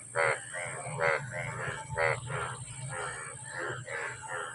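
An animal calling over and over, harsh pitched calls about one a second, growing weaker toward the end, over a steady low hum.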